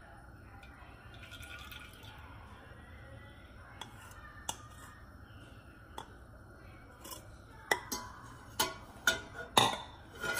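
Cooking oil poured from a plastic measuring cup into a stainless-steel pressure cooker, a faint trickle with a few light clicks. Near the end a run of sharp metallic clinks and knocks as a metal ladle goes into the pot.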